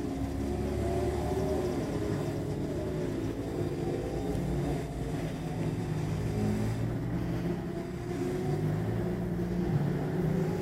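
Sports-prototype and GT race-car engines heard from about six miles away: several overlapping engine notes rising and falling as the cars accelerate and change gear.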